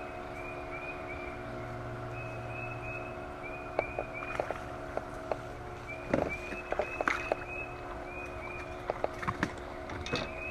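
Short high animal calls repeating in quick runs of four or five, over a steady low hum, with scattered sharp clicks and knocks starting about four seconds in.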